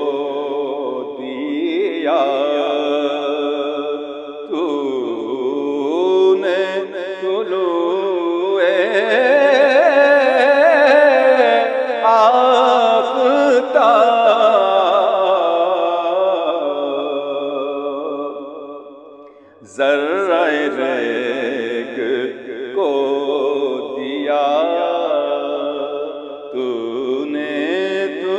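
A man singing Urdu verse in a slow, chant-like naat recitation, drawing out long ornamented notes. A long held phrase in the middle fades into a short pause, and then the singing resumes.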